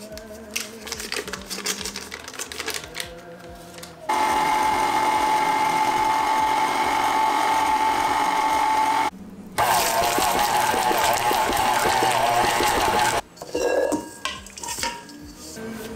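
Electric kitchen mixer running with a steady whine for about five seconds, cutting out for half a second, then running again for about three and a half seconds before stopping.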